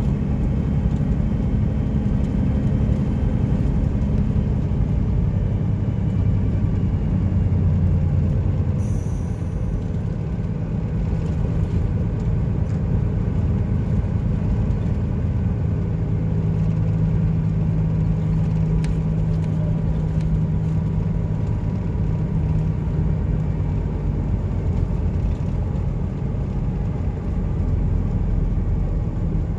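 Peterbilt 379's Detroit Diesel Series 60 inline-six running through straight pipes, heard from inside the cab as the truck drives along, a steady low engine rumble.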